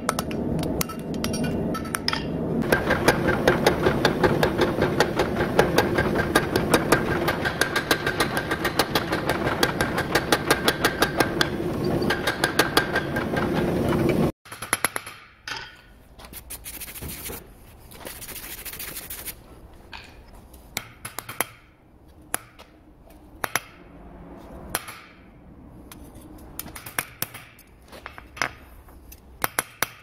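Hand hammer striking a red-hot padlock Damascus knife blade on a steel anvil: rapid, even blows over a steady background noise for about the first half, stopping abruptly. After that come scattered, lighter single strikes and clinks.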